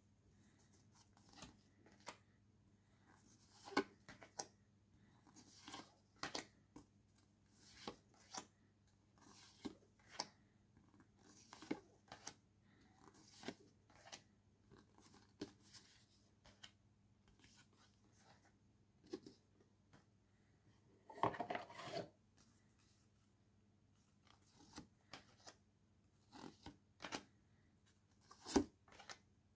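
Paper postcards being handled and flipped one at a time: short papery swishes and taps every second or two, with a longer rustle of cards a little past two-thirds of the way through, over a faint steady low hum.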